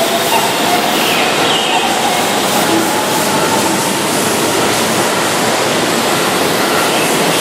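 Keihan 13000-series electric train running along the platform as it pulls out, a steady loud rush of wheel and running noise. A faint motor whine rises slightly in pitch in the first couple of seconds.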